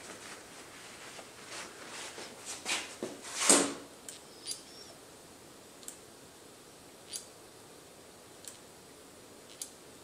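Short hissing bursts of brake-cleaner aerosol spray, the loudest about three and a half seconds in. Then the clutch lever of a 1987 Honda CBR1000F clicks every second or so as it is squeezed and released, pressurising the freshly rebuilt hydraulic clutch to check the master cylinder fittings for leaks.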